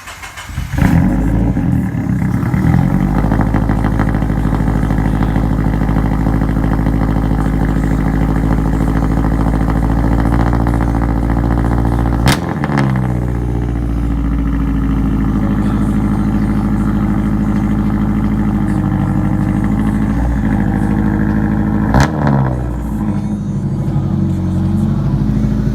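Subaru BRZ's flat-four engine starting about a second in and then running steadily, on its first start after a new clutch and lightweight flywheel were fitted. Two sharp knocks, about twelve and twenty-two seconds in, each come with a brief dip and recovery in engine speed.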